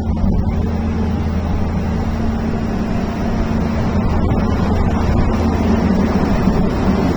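Engine of a heavy machine running steadily under work, a continuous low hum that grows a little louder about halfway through.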